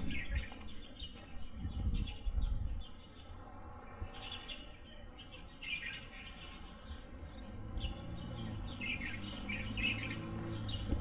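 Small birds chirping in short, scattered calls over a low background rumble, with a steady low hum coming in about two-thirds of the way through.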